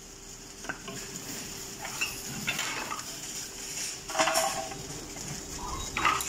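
Supermarket reverse vending machine for bottle deposits, running with a steady hum while bottles are fed into its opening, with scattered knocks and clatter. The loudest clatter comes about four seconds in.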